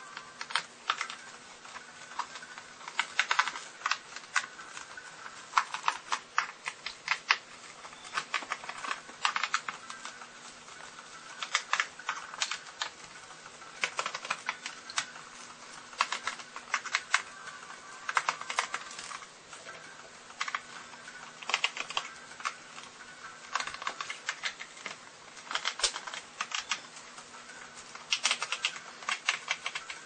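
Irregular clusters of sharp clicks and taps: hands handling and working at the plastic underside of a laptop, over a faint steady hum.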